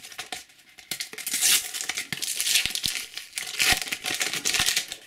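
Panini sticker packet being torn open and its wrapper crinkled in the hands, a dense crackling from about a second in until near the end.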